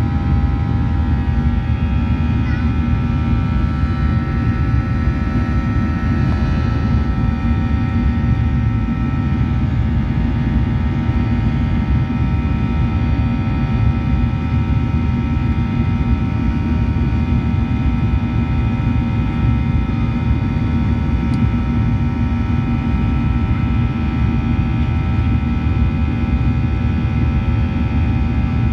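Boeing 737-800's CFM56-7B turbofan engine at climb power after takeoff, heard inside the cabin beside the engine: a steady low rumble with several steady whining tones above it.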